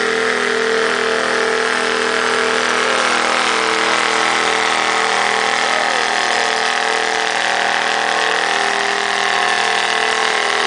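Antique farm tractor engine running loudly at a steady speed, with no revving.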